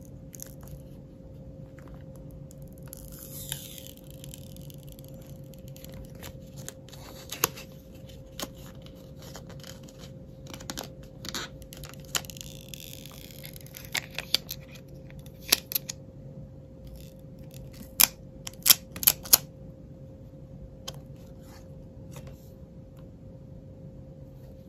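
Fingers and fingernails clicking and tapping on a tempered-glass screen protector and its plastic alignment frame, with two stretches of rustling as plastic film or a sticker is peeled. A cluster of the loudest, sharpest clicks comes about three-quarters of the way in, over a faint steady hum.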